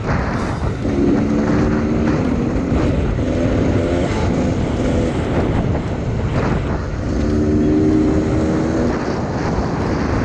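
Off-road motorcycle engines running, a steady engine note heard from about a second in to five seconds and again near the end, over constant low rumble and wind on the microphone.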